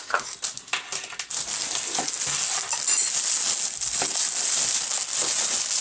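Clear plastic bag crinkling and rustling as it is pulled off a pair of headphones. Scattered crackles at first, then continuous crinkling from about a second in.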